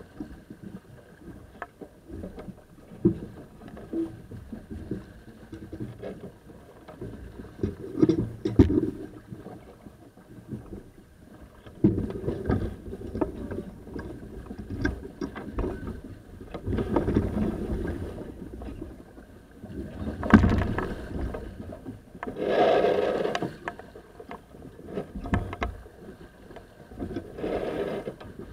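Sailing yacht under way close-hauled: a steady rush of water and wind, with scattered knocks and scrapes from crew handling lines on deck and several louder surges of rushing noise.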